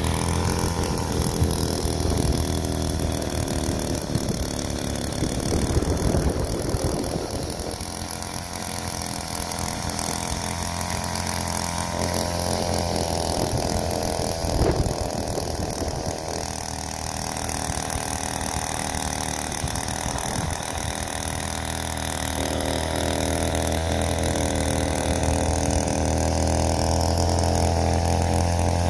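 Earthquake MC43 cultivator's 43cc two-stroke Viper engine running while its tines work the soil, the engine note shifting and the loudness dipping and swelling as the load changes. The engine runs slower than expected, which the owner thinks may be only about a quarter throttle.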